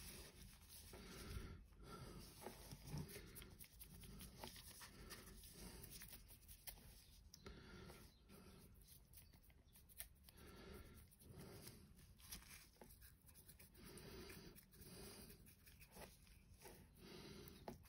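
Near silence with faint, irregular soft scratches and small taps: a paintbrush working Citadel Athonian Camoshade wash over a painted miniature, and the figure on its painting handle being turned in a gloved hand.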